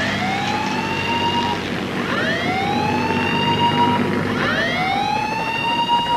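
Shipboard alarm siren sounding a repeated rising whoop, about one every two seconds, each rising in pitch and then holding, over a steady low drone. It sounds as the carrier's deck stands by for an emergency landing.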